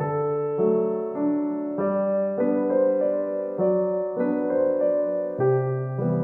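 Background music: a gentle piano melody, notes changing about every half second over sustained chords.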